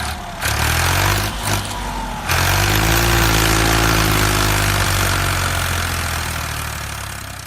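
An engine running steadily, louder from about two seconds in, with a slight rise and fall in pitch, then fading out near the end.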